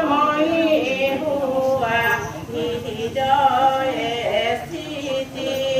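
Several voices, men's and women's, chanting a Hindu devotional hymn together without instruments, in long held, wavering notes.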